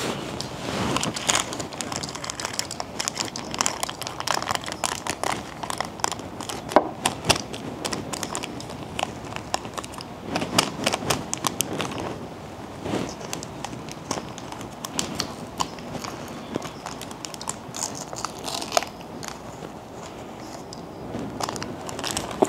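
Small plastic packet of star-shaped slime sprinkles crinkling and crackling as it is opened and shaken out, with many irregular small clicks throughout.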